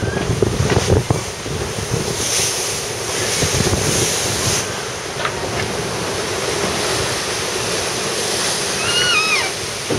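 Wind buffeting the microphone over the steady rush of sea along the hull of an ocean-racing sailboat under way, with a brighter hiss a couple of seconds in. A short wavering high squeak comes just before the end.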